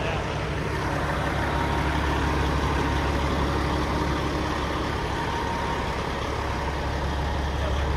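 Semi truck's diesel engine running steadily, with a low, even drone.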